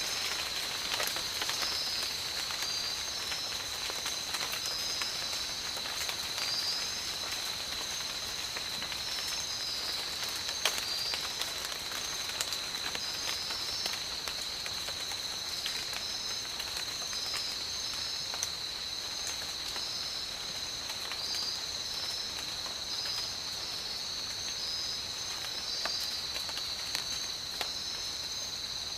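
Steady rain with scattered close drips and taps, under a constant high-pitched insect drone and short chirps repeating above it.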